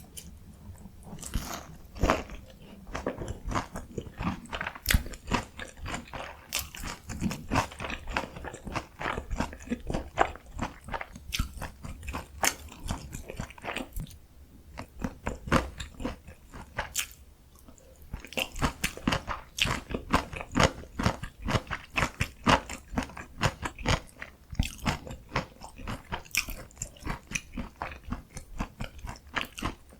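Close-miked biting and chewing of a crispy fried Korean pork cutlet (donkkaseu) topped with kimchi and cheese: dense crunching of the breaded crust, with two short lulls a little past halfway.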